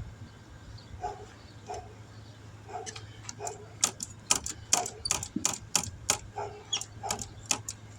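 A dog whining a few times, short high calls, then a run of sharp irregular clicks, several a second, from about three seconds in.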